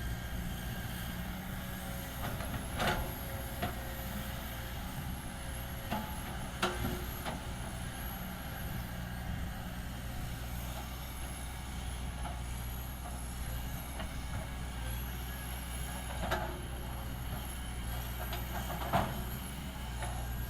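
Heavy diesel earthmoving machinery running steadily with a low drone, with a few short knocks and clanks scattered through it.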